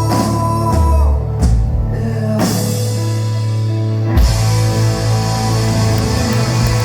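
Live rock band playing an instrumental passage: held chords over drums and guitar, with heavy hits about a second and a half in, near the middle, and again a little past it.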